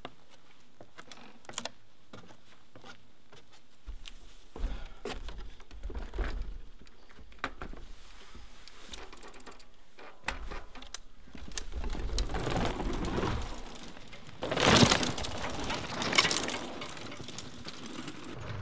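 Mountain bike's freehub clicking as the bike is wheeled over wooden north-shore planks, with scattered knocks of tyres and frame on the boards. About fifteen seconds in comes a louder rushing clatter, and a shorter one follows soon after.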